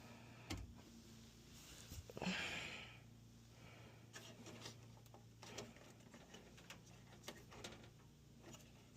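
Faint small clicks and a brief rustle from hands handling something, over a steady low electrical hum.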